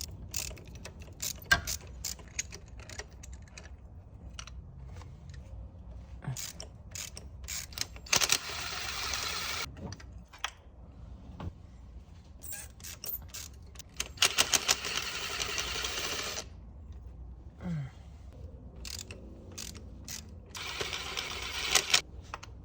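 Ratchet wrench clicking in three quick runs while spark plugs are unscrewed, with scattered sharp tool clicks and knocks between the runs.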